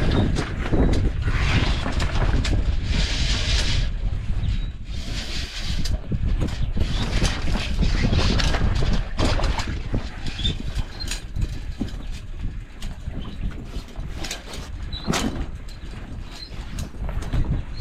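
Wind buffeting the microphone with water rushing and splashing past a sailing Hobie catamaran, the rush swelling and easing, with scattered small clicks and creaks from the boat's rigging.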